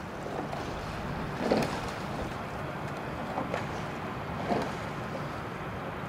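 Wind blowing across the camera microphone: a steady rumbling hiss, with a few short louder sounds about a second and a half in, again after three and a half seconds and near four and a half seconds.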